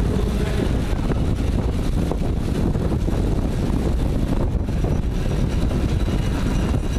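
Steady wind rush over the microphone of a bike-mounted camera at track racing speed, mixed with the hum of the bike's tyres rolling on the wooden boards.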